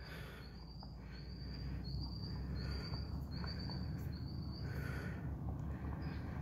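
An insect calls in a string of short, high, buzzing chirps, each a bit under a second apart, stopping after about four and a half seconds. Under it is a low rumble that grows louder.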